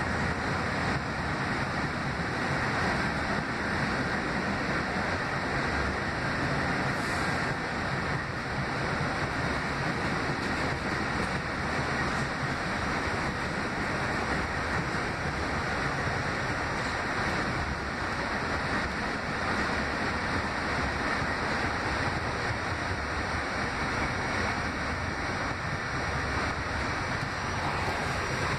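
R68A subway car running along the track: a steady rushing noise of wheels on rails and running gear.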